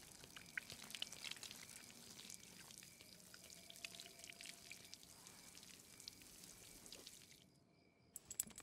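Near silence, with faint scattered dripping ticks that stop about seven and a half seconds in.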